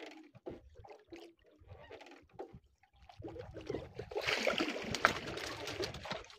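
Water splashing and trickling at the side of a wooden boat as a hooked fishing line is hauled in by hand. It starts about three seconds in and lasts about three seconds. Before it there are only faint small knocks.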